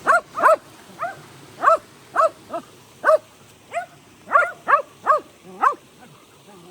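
Dog barking repeatedly: about a dozen short, loud barks, roughly two a second.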